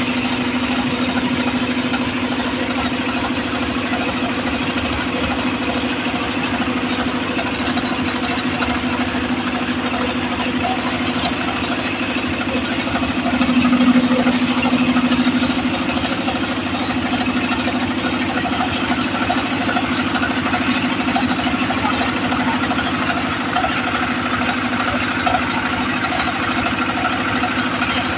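The engine of a homemade circular-saw machine running steadily with an even hum. It swells a little louder about halfway through.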